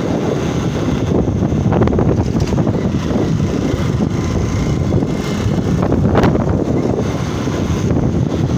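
Motorcycle engine running while riding along a street, with wind rushing over the microphone and a few brief knocks from the road.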